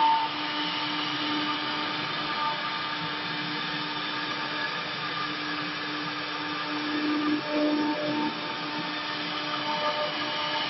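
Two spindle motors of a twin-head CNC router running together as their bits carve relief into a wood panel: a steady whining hum with the hiss of cutting, swelling briefly about seven seconds in.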